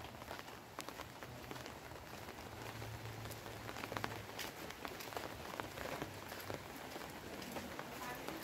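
Light rain falling, a steady hiss dotted with many separate drop ticks. A faint low hum sits under it for a few seconds in the middle.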